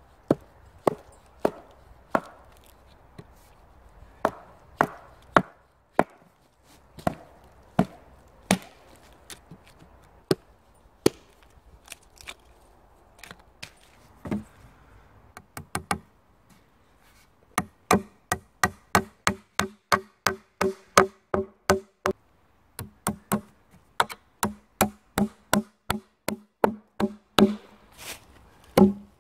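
Axe blows chopping dead wood on a stump, sharp irregular strikes about a second apart. From a little past halfway, a fast steady run of ringing strikes, about three a second, as nails are hammered into the wooden chair frame.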